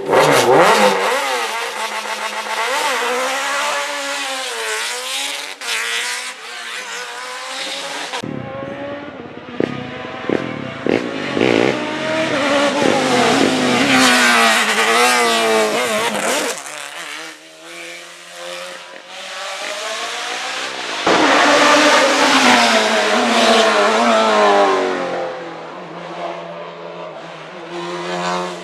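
Hill climb race cars accelerating hard one after another, their engines revving up and dropping back through gear changes.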